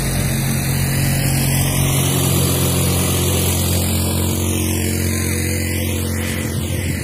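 A motor vehicle engine running at a steady pitch and passing by, with a hiss of wind and surf behind it.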